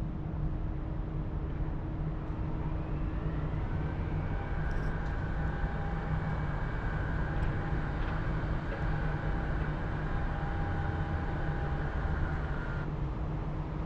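A large engine running steadily with a low rumble. A whine comes in rising about three seconds in, holds, and cuts off suddenly near the end.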